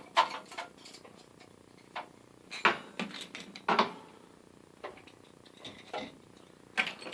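Metal hand tools (screwdrivers and Allen wrenches) clinking and clattering as they are picked up and set down in a tool box drawer. The sound comes as irregular knocks, with louder clatters about two and a half and nearly four seconds in.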